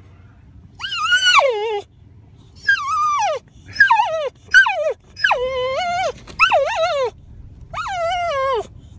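Boxer dog whining in seven high-pitched cries, each sliding down in pitch, excited at the sight of an elk herd.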